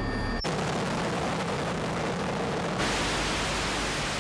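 Helicopter turbine whine heard inside the cabin, cut off suddenly less than half a second in. It is replaced by the steady rushing noise of a helicopter flying overhead, which turns brighter and hissier about three seconds in.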